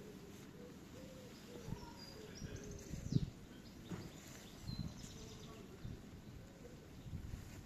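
Outdoor birdsong: a dove cooing in low, repeated notes, with a few short high chirps from small birds. A few dull low thumps break in, the strongest about three seconds in.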